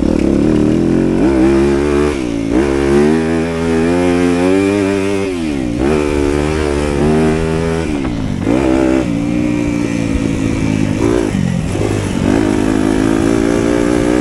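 A 250cc four-stroke single-cylinder motocross bike ridden hard on a dirt track, its engine note climbing and then cutting down several times as the throttle is opened and shut.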